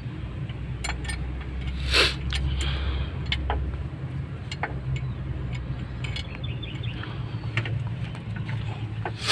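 Metal tools clicking and knocking on a truck engine's fan assembly as it is being taken apart, with a louder clank about two seconds in and another at the end, over a steady low hum.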